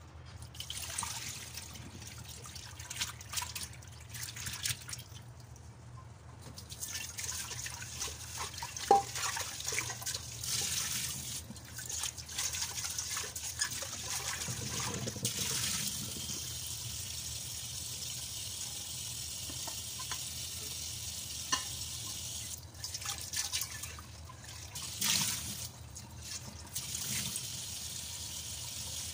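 Water splashing as a steel pot of soaking water is tipped out into a stainless steel sink, with a sharp knock of metal about nine seconds in. From about halfway, a kitchen tap runs steadily onto the soaked dried sea cucumbers in the sink.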